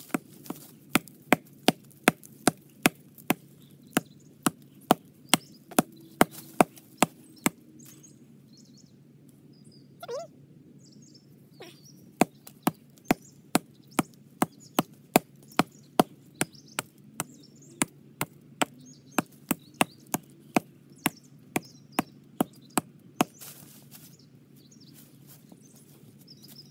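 Hatchet chopping into the trunk of a small standing tree: quick, sharp blows of steel biting wood, about two or three a second. They come in two runs with a pause of about four seconds between them.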